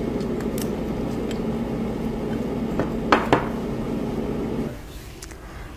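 Light clicks and clatter of a hard plastic phone cover being handled and pressed into a mould, over a steady hum that drops away about three-quarters of the way through.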